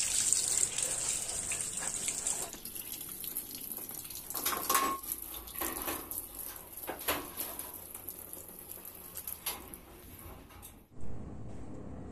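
Water running from a tap, with a few short knocks along the way. It cuts off sharply near the end.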